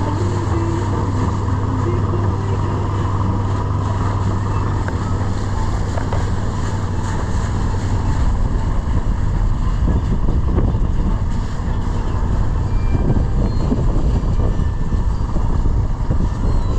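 Boat engine running steadily underway, a low, even drone throughout.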